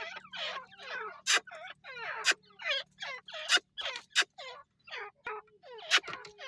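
Teetar (francolins) calling in a quick run of short, downward-sliding notes, about two or three a second, with a few sharp clicks mixed in.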